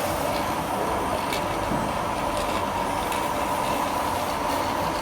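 Rotary automatic perfume filling and crimping machine running: a steady mechanical hum with a held tone and a few faint light clicks.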